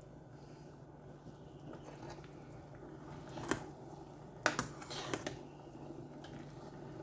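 A few light clicks and knocks of cookware being handled, one about halfway through and a quick cluster just after, over a steady low hum.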